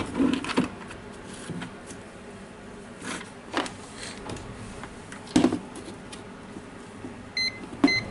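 Knocks and clicks of parts and tools being handled and set down on a wooden table, then near the end two short electronic beeps from a UNI-T clamp meter as its rotary dial is switched on.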